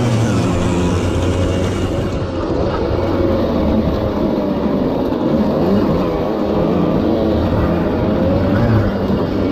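Small two-stroke moped engine running hard in a dirt-track race, its pitch rising and falling with the throttle, with other mopeds running close by.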